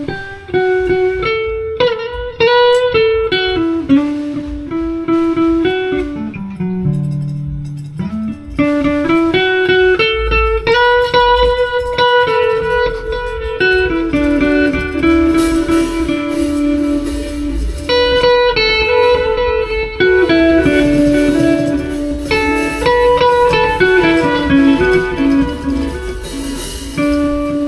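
Improvised jam: a guitar playing a quick, wandering single-note melody line, with low bass notes underneath from about ten seconds in.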